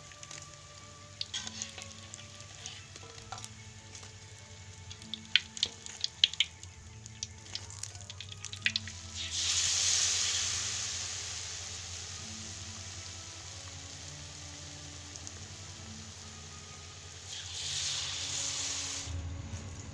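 Hot oil deep-frying in a wok, with scattered crackles and pops at first. About halfway through, a battered piece goes into the oil and sets off a loud sizzle that slowly dies down. The sizzle swells again near the end.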